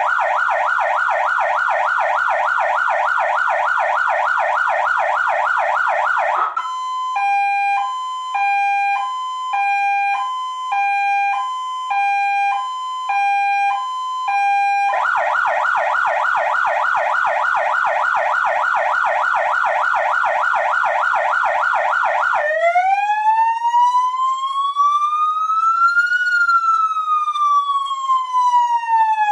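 Zura 1120 electronic police siren cycling through its modes: a fast warble, then a two-tone high-low alternating about once a second from about six seconds in, the fast warble again about halfway through, and in the last quarter a slow wail that rises for about four seconds and then falls.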